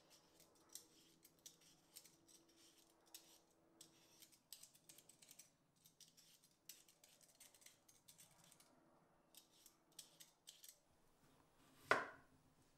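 Vegetable peeler scraping the skin off a potato in short, faint strokes, about one or two a second. Near the end a chef's knife cuts once through a potato onto a wooden cutting board.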